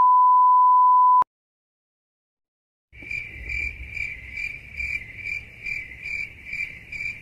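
A loud, steady test-tone beep, the kind that goes with colour bars, cuts off about a second in. After a short silence, a steady high insect chirring starts near the middle and pulses about two and a half times a second.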